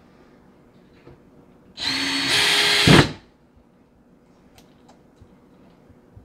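Cordless drill/driver running once for a little over a second, driving a screw that fastens the pull-out trash can slide to the wooden cabinet floor. It gets louder about half a second into the run and stops with a low thump. Faint handling clicks come before and after.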